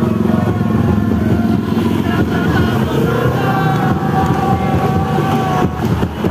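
Bus and motorbike engines running in slow street traffic, with supporters' voices shouting over them.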